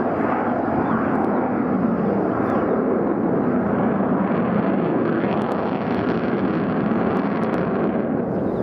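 Steady, even jet noise from the Avro Vulcan's four Rolls-Royce Olympus turbojets as the delta-wing bomber flies past overhead.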